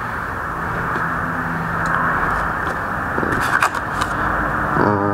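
Steady background hum and hiss, with a few faint clicks of a card and a foam gimbal case being handled; a voice starts just before the end.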